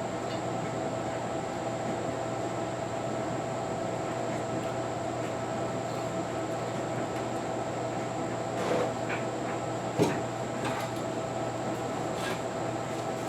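A steady mechanical hum with a few light clicks and knocks, the sharpest knock about ten seconds in.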